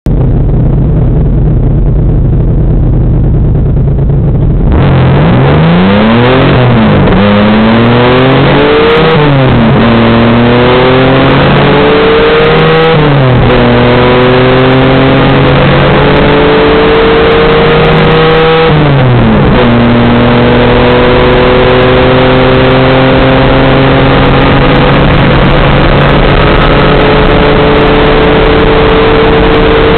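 Twin-engine Mitsubishi Eclipse, a turbocharged 420A four-cylinder in front and a naturally aspirated 6G72 V6 in the rear, both with electronic exhaust cutouts open, heard from inside the cabin. A steady low drone gives way about five seconds in to a full-throttle pull: the engine pitch climbs and drops back at each upshift, several times, then rises slowly through one long pull in top gear.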